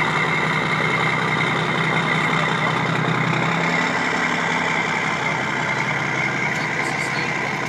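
Diesel engine of a container semi-truck running steadily, heard through its vertical chrome exhaust stack right beside the listener. Its low note shifts slightly about three and a half seconds in.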